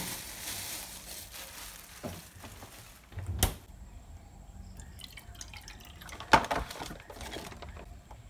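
Water poured from a glass jar into a ceramic mug at a stainless steel sink, with sharp knocks and clinks of the jar and mug, the loudest about three and a half and six and a half seconds in.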